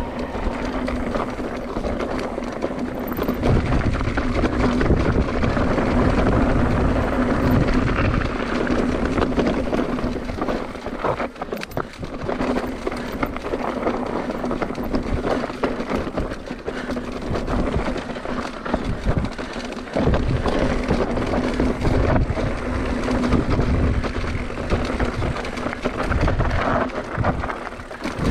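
Mountain bike rolling over a rough dirt trail, with gusting wind rumble on the action camera's microphone, rattle from the bike and a cluster of knocks about eleven seconds in.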